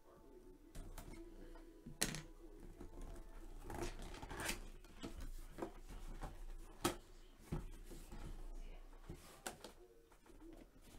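Cardboard box being handled and opened: scattered taps, scrapes and rustles of cardboard, with a few sharper clicks.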